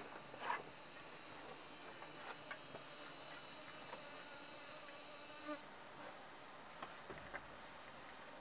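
Steady high-pitched chorus of insects, which changes abruptly partway through, with a few faint knocks and crackles from the wood fire and the cooking pot.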